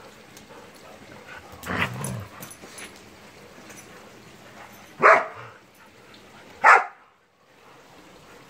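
Dogs barking in play: three short barks, about two, five and nearly seven seconds in, the last two the loudest.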